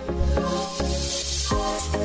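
Background music with a steady beat and bass, with a hissing swell about halfway through.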